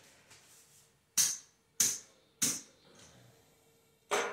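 Casino chips clacking together as they are picked up and stacked: sharp clicks, three about half a second apart starting about a second in, then one more near the end.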